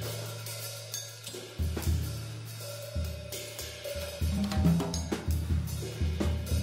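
Schagerl drum kit played solo: bass drum and tom strokes under cymbals and hi-hat. A low drum rings on for about a second and a half at the start before the strokes pick up again.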